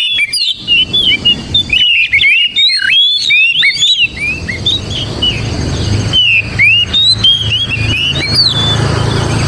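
Oriental magpie-robin singing a rapid run of whistled, gliding phrases and chirps, thinning to scattered phrases about four seconds in. A low steady hum comes in underneath at the same point.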